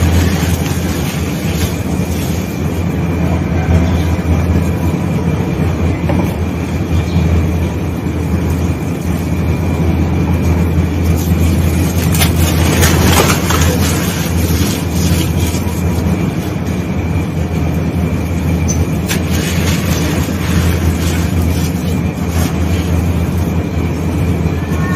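Damp sand-and-cement balls crushed and crumbled by hand: gritty crunching and crackling of breaking clumps and grains sifting through fingers, busiest about halfway through, over a steady low hum.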